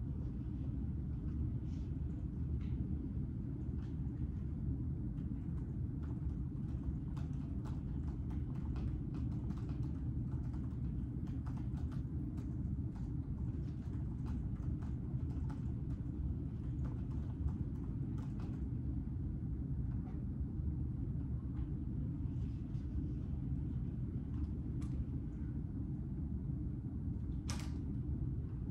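Steady low room hum with scattered soft clicks and taps, and one short louder scrape near the end.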